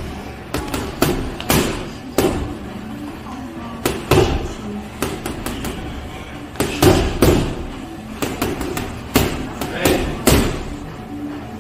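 Boxing gloves punching a teardrop-shaped hanging heavy bag: sharp thumps in irregular quick combinations of two to four, with short pauses between runs.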